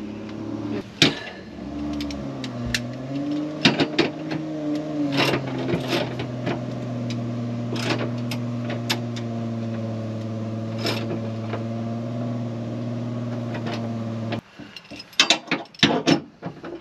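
Sharp metallic clicks and taps of a socket and spanner on the underslung spare wheel carrier's support bracket as its nut is tightened, over the steady hum of an idling engine. The hum wavers in pitch briefly early on and cuts off abruptly near the end, leaving only the clicks.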